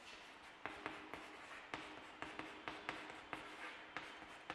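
Chalk tapping and scraping on a blackboard as capital letters are written: a string of faint, irregular short clicks starting a little under a second in.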